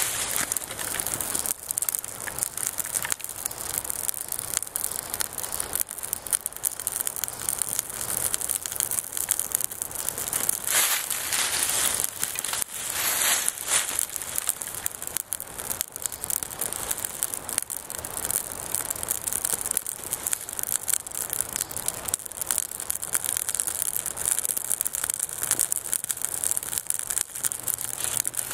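Birch bark and fine wood shavings crackling and popping as they burn in a small tinder bundle. Around the middle there are a couple of louder rustles as dry twigs are piled on top.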